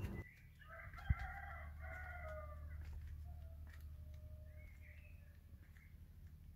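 A rooster crowing faintly: one long drawn-out crow that trails off, over a steady low hum. A brief low thump comes about a second in.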